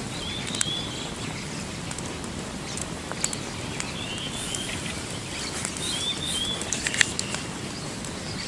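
Campfire crackling, with sharp snaps and pops over a steady hiss, the loudest snap about seven seconds in. A few short high chirps come and go.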